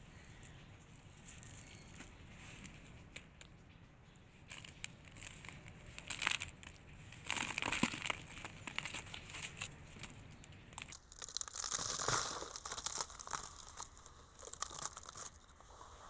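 Dry red earth being crumbled by hand, the gritty clumps crunching and pattering onto a piece of cardboard and into the heap. It starts about four seconds in after a quieter stretch and comes as irregular crackling handfuls.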